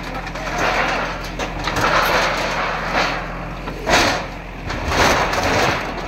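A JCB backhoe loader's diesel engine running while its bucket tears and crumples corrugated metal roofing sheets, giving repeated crashes and scrapes of sheet metal about once a second, the loudest about four seconds in.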